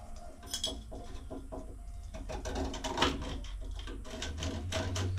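Small metal tool clicking and scraping inside the open seat port of an old three-handle tub/shower valve, in a run of quick, irregular clicks. A low steady hum sits underneath.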